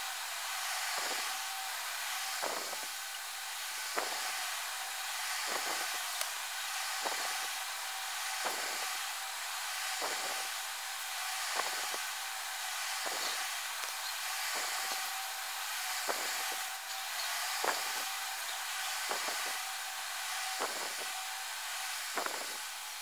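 A steady hiss with soft, short taps about every second and a half.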